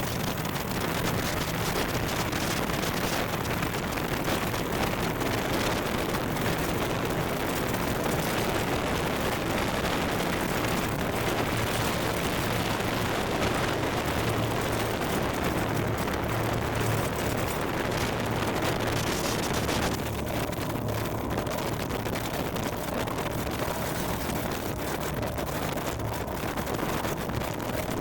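Steady drone of light-aircraft piston engines under a rushing noise, with a low hum throughout; the high hiss eases off about twenty seconds in.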